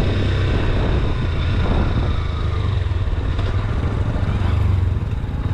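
Motorcycle engine running steadily while riding, a continuous low drone with road and wind noise over it.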